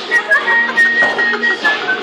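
Music playing, its high melody line held close to one pitch with brief slides between notes.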